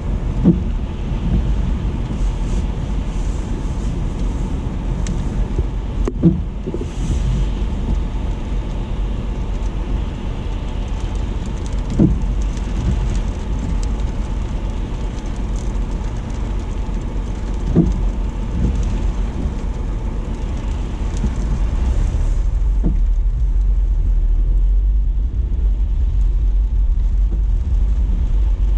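Car road noise in heavy rain: a steady low rumble under a hiss of rain, with a soft thump about every six seconds. The rain hiss fades somewhat after about twenty seconds.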